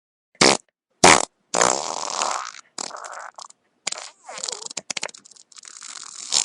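Wet fart sound effect: two short, loud blasts, then a long sputtering run of fart noises broken by many short gaps, which cuts off suddenly near the end.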